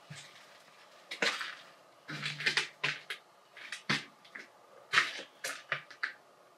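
An irregular string of clicks, knocks and light clattering, about a dozen sharp strokes in a few seconds, from someone moving and handling gear in a small, debris-strewn room.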